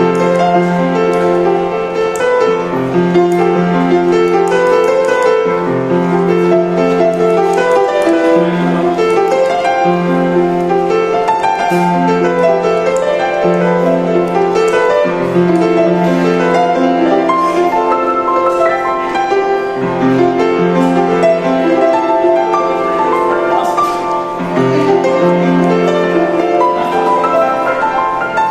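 Upright piano played solo: a melody over repeated low bass notes and chords, continuous without a break.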